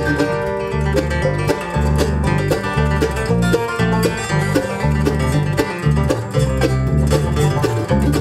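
Live bluegrass band playing an instrumental passage: banjo, mandolin and acoustic guitar picking over a steady walking bass line.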